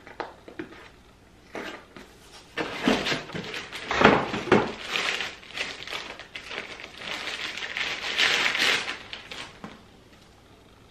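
A camera body being unwrapped from a crinkly white bag: rustling and crinkling with a couple of knocks, loudest about four seconds in. The sound dies away near the end as the camera comes free.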